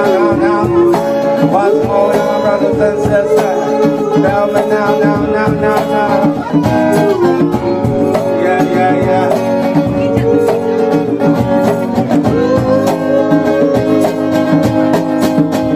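Live acoustic band playing an instrumental break: a harmonica, cupped against the vocal microphone, plays a melody with pitch bends over a strummed acoustic guitar and hand-drum strokes.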